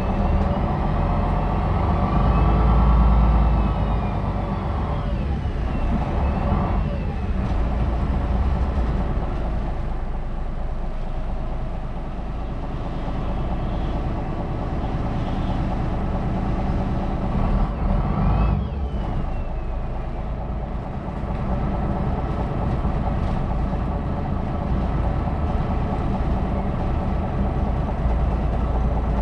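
MAN NL313 A21 city bus's diesel engine running as the bus drives, heard on board. A high whine rises and falls about three seconds in and again a little past the middle, and the engine note shifts with it.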